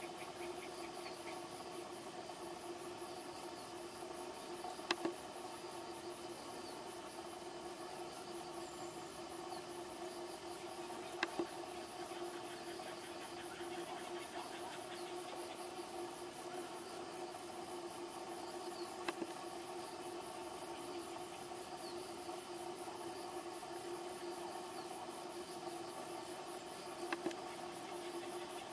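Insects chirping with a fast, even, very high pulse over a steady hum, broken by four sharp clicks spaced several seconds apart.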